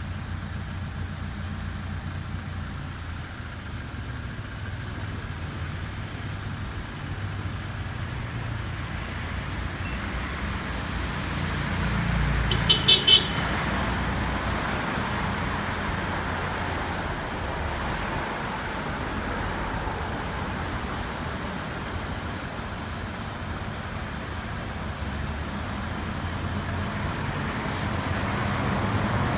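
Road vehicle driving in traffic, with a steady engine and road rumble that swells briefly. About thirteen seconds in there are four quick high-pitched toots in rapid succession.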